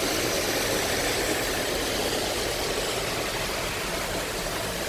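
Very heavy rain beating steadily on a car's body and windscreen, heard from inside the cabin, with the car's engine running under it.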